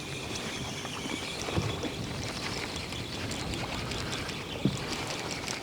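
Steady wind and water noise around a small fishing boat at sea, with a couple of faint knocks on the boat.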